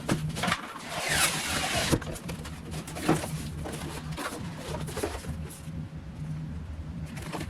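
Graphics card packaging being handled: light clicks and taps of cardboard and plastic, with a longer sliding, rustling sweep about a second in, like a box part or wrapping being drawn out.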